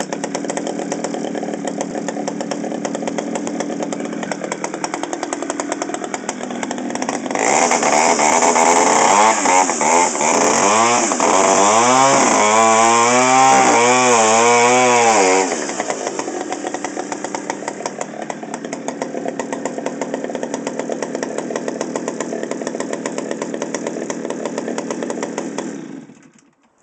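Two-stroke chainsaw idling, then revved hard for about eight seconds with the engine pitch rising and falling several times, then dropping back to idle. It is switched off near the end and runs down.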